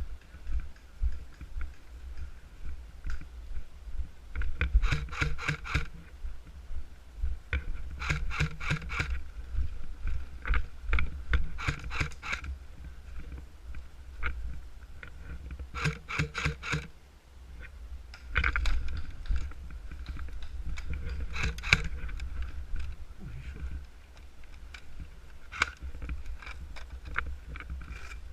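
Airsoft guns firing bursts of rapid clicks, about six bursts a few seconds apart, over a steady low rumble of movement or wind.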